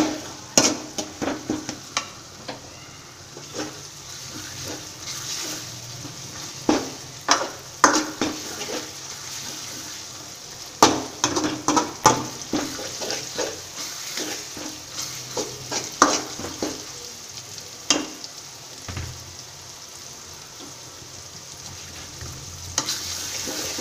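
Onion-tomato masala with ground spices sizzling steadily in oil in a kadhai, while it is stirred and mashed. The stirring utensil scrapes and clacks against the pan at irregular intervals. This is the stage where the spices fry in the oil before it separates.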